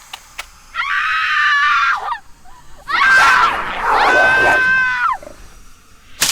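Two high-pitched human screams as a horror sound effect: a shorter one of about a second, then a louder, longer one of about two seconds. A few faint clicks come before them.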